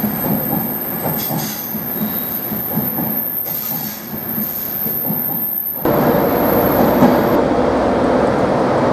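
Coaches of an InterCity 225 express rolling past along the platform, wheels rumbling on the rails with faint squeals. About six seconds in it cuts abruptly to a louder, steady diesel engine sound from a Class 158 diesel multiple unit drawing into the platform.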